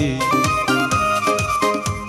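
Instrumental break in Kurdish folk music: a clarinet-like reed melody of held notes over a steady drum beat.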